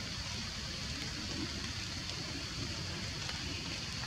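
Steady outdoor background hiss in a forest, with a low rumble underneath and a few faint ticks.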